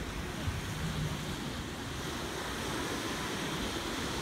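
Small waves breaking and washing up on a sandy beach, a steady wash of surf, with wind noise on the microphone.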